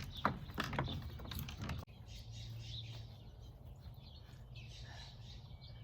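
A quick run of sharp clicks and knocks, like parts being handled, cuts off abruptly about two seconds in. Birds then chirp faintly over a low outdoor hum.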